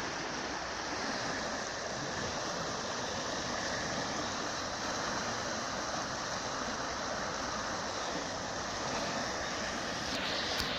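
A small river in flood rushing steadily, its turbulent brown water churning. A few handling knocks and rubs near the end.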